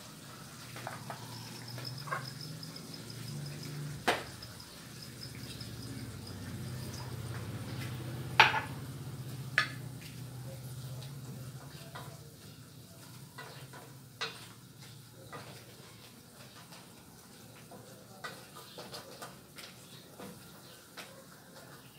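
A wooden spoon stirring crab in a stainless steel pan, knocking sharply against the pan now and then, loudest about eight seconds in, over a soft sizzle of cooking.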